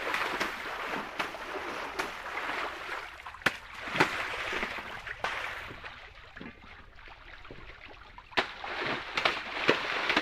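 Water splashing and sloshing in a concrete tank as custard apples are scrubbed and washed by hand, with repeated sharp splashes. The splashing eases off for a few seconds in the middle, then picks up again.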